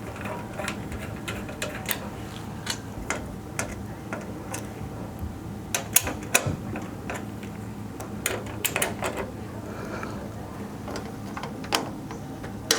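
Irregular clicks and light plastic knocks from handling cables and pushing a power connector home inside a PC case.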